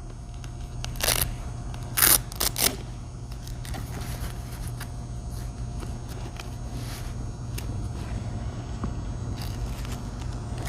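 A few short crinkling rustles of the $5 work gloves and their packaging being handled, once about a second in and three times close together around two seconds in, over a steady low hum.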